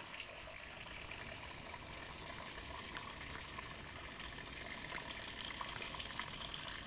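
Thin trickle of water running down a rock face, a faint steady rush of water.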